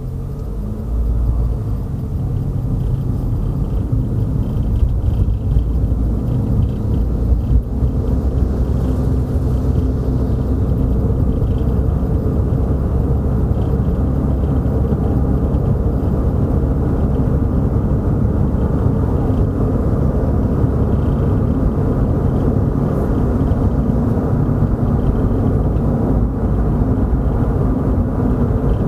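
Car on the move: steady low rumble of engine and tyres, building over the first few seconds and then holding level.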